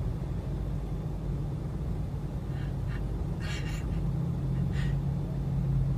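Motorcycle engine idling with a steady low hum, and a few short, high dog sounds about two and a half to five seconds in.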